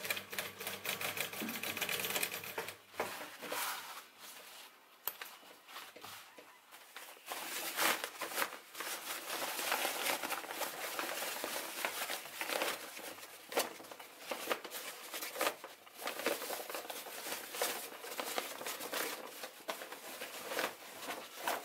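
Industrial lockstitch sewing machine running steadily as it stitches canvas, stopping after about two and a half seconds. Then the stiff canvas rustles and crinkles as it is handled and folded for most of the rest, with scattered light clicks and knocks.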